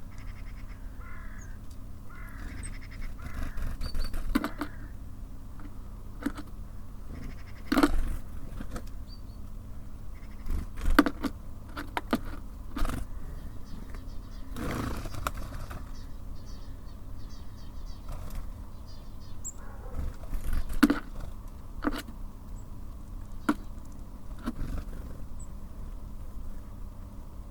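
Birds at a feeder: irregular sharp pecking knocks and taps, with a few short calls, over a steady low hum.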